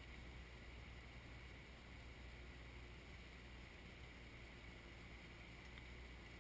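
Faint, steady running of a Kioti 3054 compact tractor's diesel engine as it works its backhoe, barely above the noise floor.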